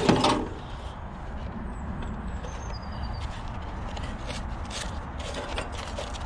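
Scrap being handled by hand: a short clatter at the start, then a few light knocks over a steady low rumble, with faint high chirps.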